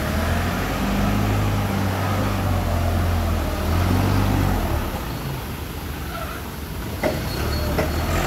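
Cat counterbalance forklift engine running as the clamp truck drives past close by. The engine note is strongest over the first four seconds or so, eases off, then picks up again near the end. Two short knocks sound near the end.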